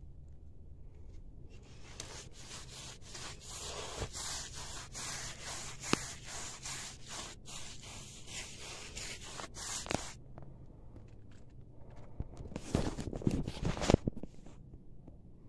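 Paintbrush scrubbing paint onto a wall in quick, scratchy back-and-forth strokes, a steady run of them from about two seconds in to about ten seconds. A shorter flurry of louder strokes follows near the end.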